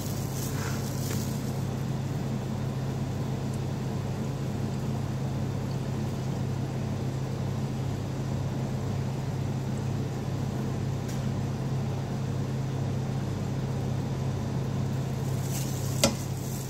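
Steady low machine hum. A single sharp clink near the end, a metal bar spoon striking the glass bottle while stirring.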